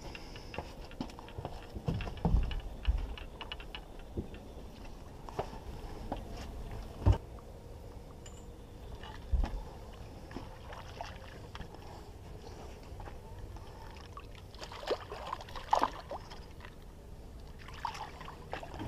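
Handling noise aboard a fishing boat: scattered knocks and a few heavy low thumps, with many light clicks and some water sloshing over a faint steady hum.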